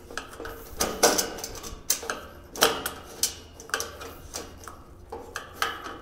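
Metal clicks and clinks of an L-shaped hex key being turned and reset on a bolt in a stainless steel cart leg as the bolt is tightened. The clicks come irregularly, about one every half second to a second, the sharpest about one and two and a half seconds in.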